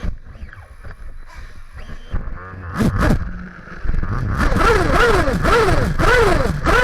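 Max Power Storm tuned nitro engine of a Kyosho MP9 TKI4 1/8th-scale buggy, heard up close from the car itself. It is fairly quiet at first, with a brief rev about three seconds in. From about four seconds in it runs loud, revving up and dropping back over and over, about twice a second, as the throttle is worked.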